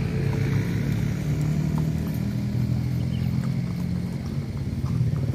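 A steady low engine drone, with faint hoofbeats of horses cantering on a dirt track.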